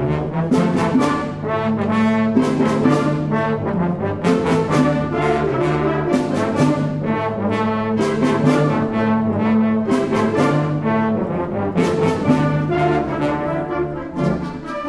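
Middle school symphonic band playing a loud brass-led passage: sustained chords from trombones, trumpets and horns, punctuated by frequent sharp accented hits.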